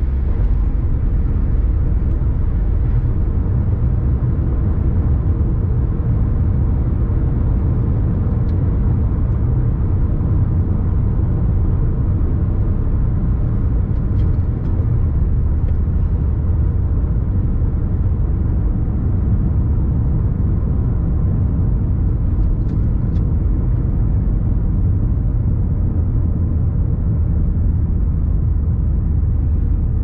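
Steady low rumble of a van cruising on a wet road, heard from inside the cabin: engine and tyre noise holding an even level.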